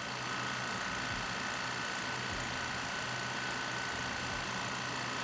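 Steady, even machine drone with a constant hum, no starts or stops.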